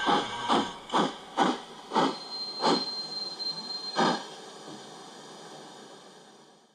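Ride-on model of the narrow-gauge steam locomotive 99 7244 chuffing as it slows to a stop. The beats spread out from about two a second to a last chuff about four seconds in, followed by a faint hiss that fades away.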